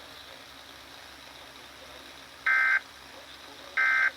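Emergency Alert System end-of-message code: two short, loud, buzzy digital data bursts about a second apart over a steady background hiss, the tones that mark the end of the alert message.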